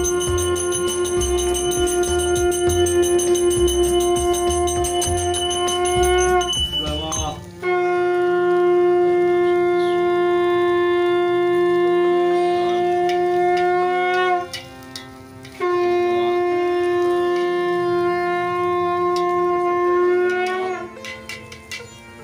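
Conch shell (shankha) blown in three long, steady blasts of about six or seven seconds each, with short breaks between them. The conch is sounded as part of the puja ritual.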